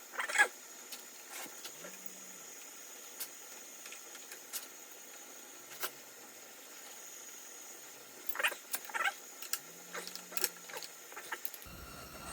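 Scattered light clicks, taps and rattles of hand tools and metal parts being handled during dirt-bike rear shock installation. The loudest cluster comes about half a second in, with another run of taps between about eight and eleven seconds in.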